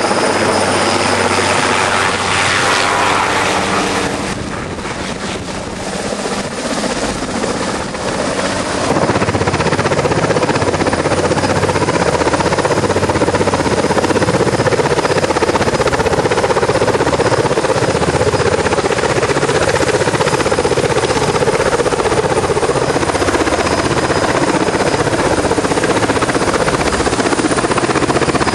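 Sikorsky AirCrane heavy-lift helicopter running overhead, a steady pulsing rotor beat with turbine noise. It drops a little about four seconds in, then comes back louder after about nine seconds and holds steady.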